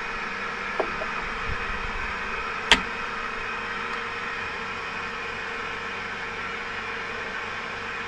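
Metal clicks from a Sharps .45-70 single-shot rifle's action being worked by hand: a faint click about a second in and a sharp click near three seconds in. A steady hiss with a faint hum runs underneath.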